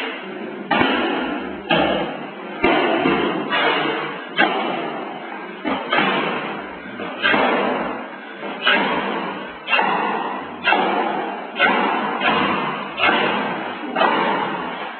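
Chen-style taiji cannon fist performer's forceful foot stamps and strikes on a concrete floor: a run of heavy thuds about once a second, slightly uneven in spacing, each ringing out before the next.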